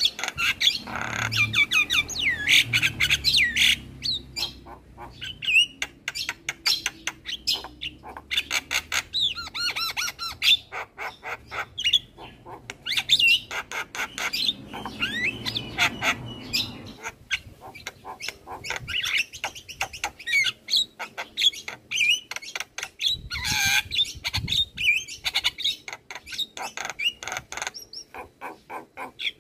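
Javan myna singing hard: a fast, almost unbroken stream of rattling clicks, whistled notes and harsh squawks, with a few louder calls in the second half.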